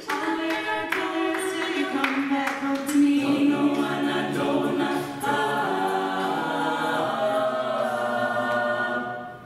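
Mixed-voice a cappella group singing in multi-part harmony with no instruments, the voices holding sustained chords; the sound dies away just before the end.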